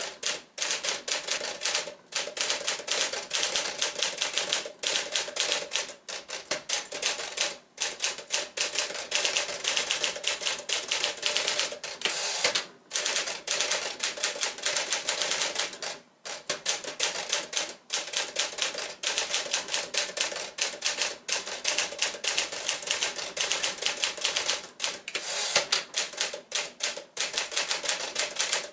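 1957 Smith Corona Clipper manual typewriter being typed on briskly: a fast, continuous clatter of typebars striking the platen, broken by a few brief pauses.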